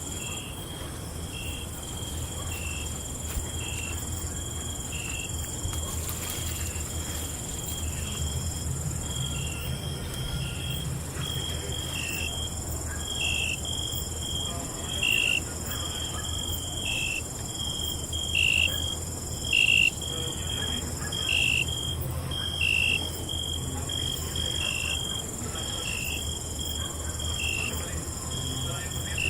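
Night chorus of crickets: a steady high trill with a repeated chirp about once a second, the chirps louder in the middle stretch. A second, higher steady insect trill breaks off briefly a few times, over a low, even background rumble.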